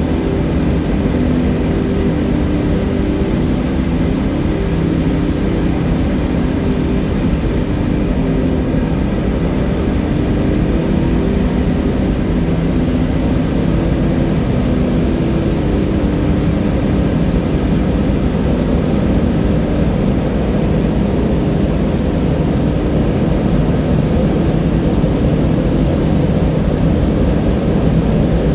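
A river's water rushing steadily, a loud even noise heaviest in the low end.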